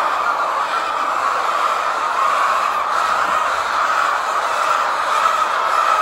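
Steady din of a large flock of layer hens clucking and calling together, the many voices blending into one even, unbroken noise.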